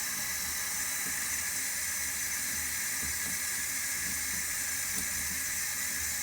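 Water running steadily from a tap into a tub: an even, unbroken hiss of flowing water.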